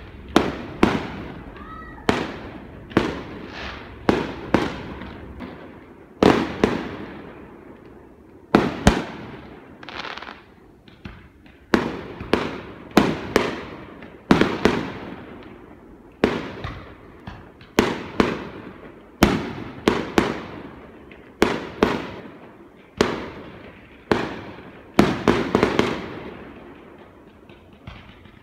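Aerial firework shells bursting in steady succession: sharp bangs about one a second, often in quick pairs or threes, each trailing off in a rumbling echo.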